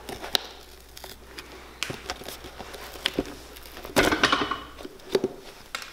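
Steel end nippers clicking and scraping on square-cut nails as they are gripped and pulled out of a leather boot heel, with a longer scraping pull about four seconds in.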